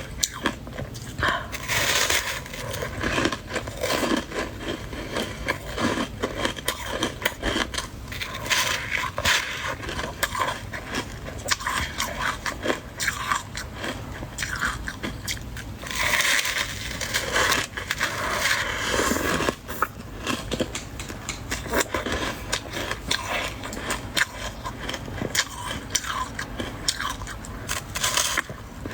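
Close-miked biting, crunching and chewing of soft white ice (freezer frost), a rapid run of crisp crunches with several denser bursts of crunching.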